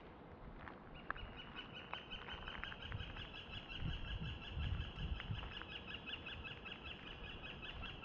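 A long, even trill of rapid repeated notes from a calling animal, starting about a second in and running on for about seven seconds, over outdoor forest ambience. A few low thuds of footsteps sound around the middle.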